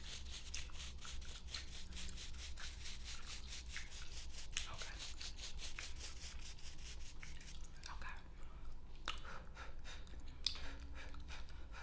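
Rapid back-and-forth scratchy rubbing on fingernails, about six strokes a second, thinning out to a few scattered strokes after about seven seconds, over a steady low hum.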